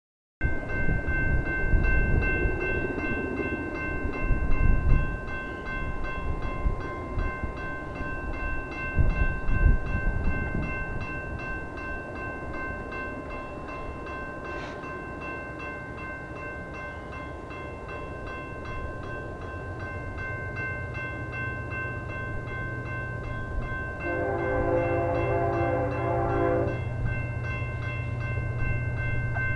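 BNSF diesel locomotives on a light-engine power move, their low engine rumble building through the second half over a steady high whine. The multi-chime air horn sounds one blast of about three seconds late on, and starts another right at the end.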